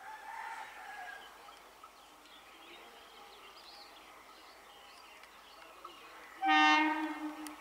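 Birds chirping faintly, then a single loud horn blast lasting about a second near the end, from the approaching three-phase MEDHA EMU local train.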